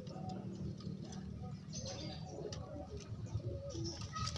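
Domestic pigeons cooing in wavering calls over a steady low rumble.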